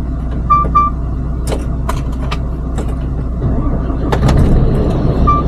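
Truck engine idling, heard from inside the cab, growing louder about four seconds in. A pair of short beeps sounds shortly after the start and again at the end, with a few scattered clicks between.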